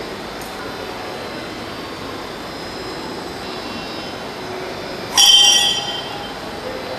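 Altar bell struck once about five seconds in, a bright ringing of several high tones that dies away within about a second, marking the consecration as the priests bow at the altar. Before it there is only a steady church room hum.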